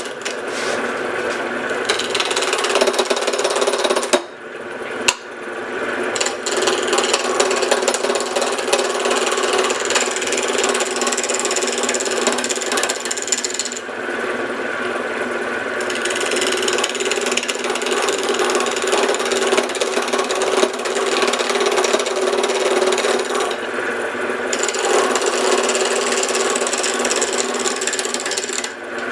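Wood lathe running at slow speed while a roughing gouge cuts an out-of-round blank, giving a rough, chattering scrape over a steady hum; the cutting eases off briefly a few times as the tool is lifted. The blank is still vibrating off-round and the gouge is dull, so the cuts are rough.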